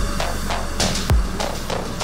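Background electronic music with two deep kick-drum hits that drop in pitch, about a second apart.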